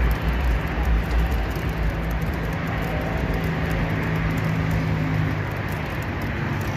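Steady traffic noise rising from the expressway beneath the footbridge, with wind buffeting the microphone, heaviest in the first couple of seconds.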